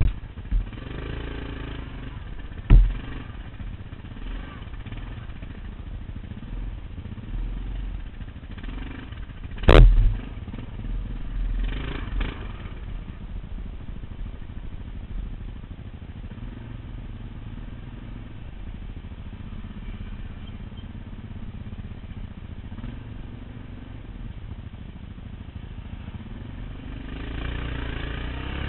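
Quad (ATV) engine running along a trail, with two sharp knocks, a small one about three seconds in and the loudest about ten seconds in. The engine rises in pitch near the end.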